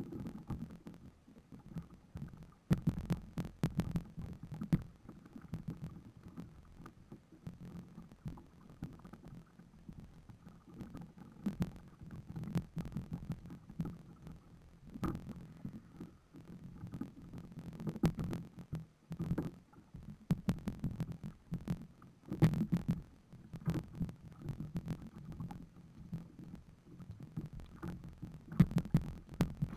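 Irregular muffled knocks and thumps on a wooden dugout canoe's hull, with sharp clicks mixed in, as fishing line and catch are handled in the boat. They come in clusters a few seconds apart.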